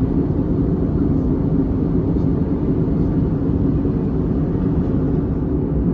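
Steady airliner cabin noise in flight: a constant low rumble of the engines and airflow.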